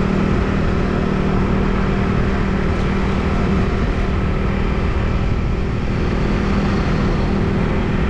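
Motorbike engine running steadily at an even pace, with a constant low hum under road and wind noise.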